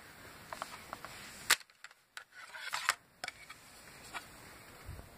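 Hard plastic case of a Casio fx-300ES Plus calculator clicking and rubbing as it is handled and pried at. There is one sharp snap about a second and a half in, a quick run of smaller clicks near three seconds, and scattered light clicks between.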